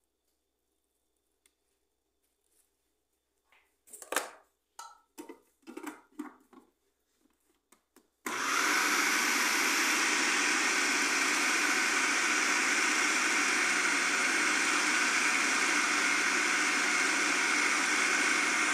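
A few plastic knocks and clatters as the food processor's bowl and lid are handled, then about eight seconds in its motor starts abruptly and runs steadily, chopping and mixing bulgur wheat, ground beef, onion and tomato for kibe.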